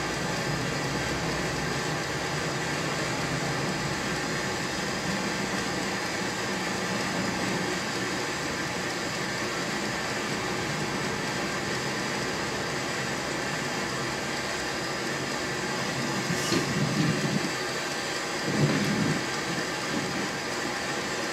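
Steady hissing noise of a running appliance, with a couple of brief soft rustling bumps near the end.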